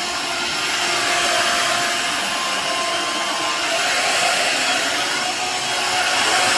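Shark Navigator Freestyle SV1106 cordless stick vacuum running steadily: a high motor whine over a loud rush of air.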